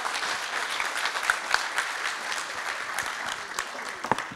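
Audience applauding: dense clapping from many people, beginning to thin out near the end.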